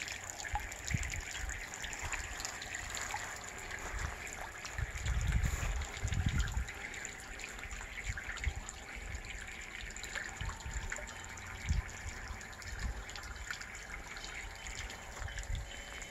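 Water trickling steadily from a bamboo spout into the stone bowl of a garden fountain. Some low rumbling comes and goes, strongest about five seconds in.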